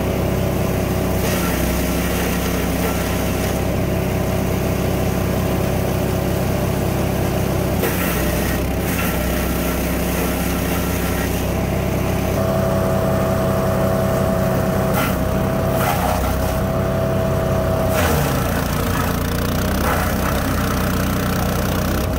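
A 15 hp wood chipper's gasoline engine running steadily, its tone shifting about twelve seconds in, with a few short sharp knocks.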